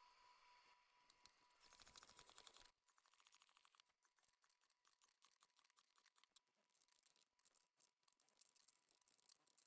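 Near silence: faint room tone with light ticking, and a brief, slightly louder stretch of rapid fine clicking about two seconds in.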